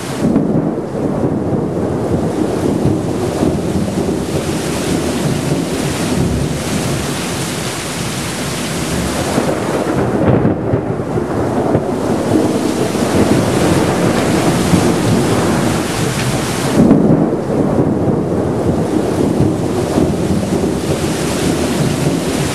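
Thunderstorm: steady heavy rain with thunder rumbling through it, rolling loudest about half a second in and again around seventeen seconds.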